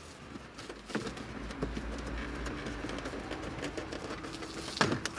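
Plastic clips of a car's under-steering-column trim panel being pried loose: scattered small clicks and scrapes, a sharp snap about a second in, and a louder snap near the end as a clip lets go.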